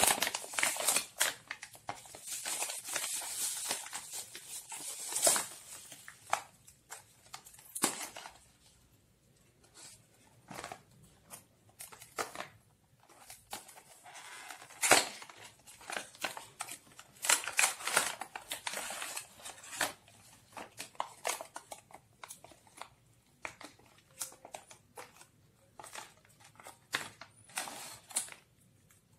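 Plastic bubble-wrap packaging crinkling and rustling as it is handled and pulled open, dense for the first five seconds or so. After that come scattered short rustles and clicks from a cardboard box and a small plastic bag being handled.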